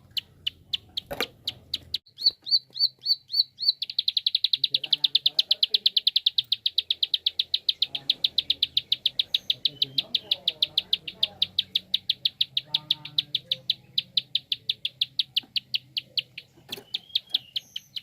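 Prenjak (prinia) giving its rapid 'klik' call: a long series of sharp, high ticks that speeds into a fast rattling run about four seconds in, then settles back to a steady ticking.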